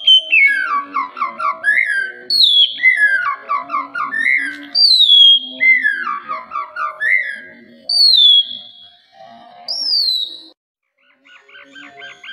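White-rumped shama (murai batu) singing: a clear whistle sliding down in pitch, then a quick run of lower notes, repeated about every two seconds. After a brief pause near the end, a fast stream of rapid chattering notes begins.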